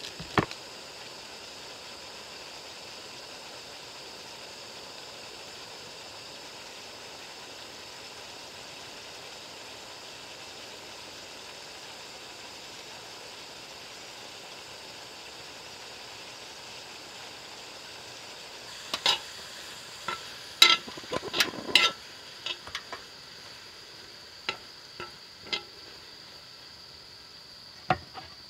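Spicy webfoot octopus and pork belly sizzling steadily in a frying pan on a portable gas stove. About two-thirds of the way in, a metal utensil clinks against the pan several times as the food is stirred, with one more clink near the end.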